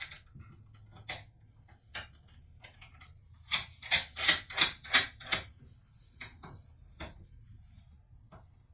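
Bench vise being opened: scattered metal clicks and clacks, with a quick run of about six sharp clacks, roughly three a second, near the middle.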